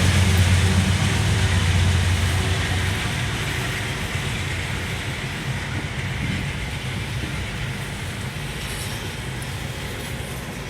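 Freight train passing: a low diesel hum that dies away about three seconds in, then a steady rolling rumble of rail cars that slowly grows fainter.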